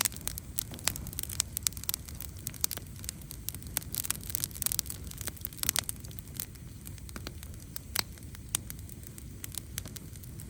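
Wood campfire crackling, with sharp irregular pops over a steady low rumble of the flames.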